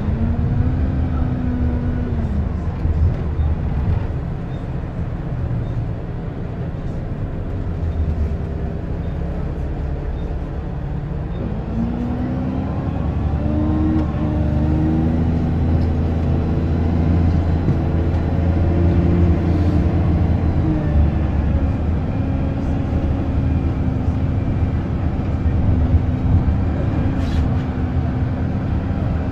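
Optare Versa single-deck bus's engine and drivetrain heard from inside the passenger saloon while driving. The engine note rises and falls several times as the bus accelerates and eases off, and it is quieter and lower for several seconds in the first third.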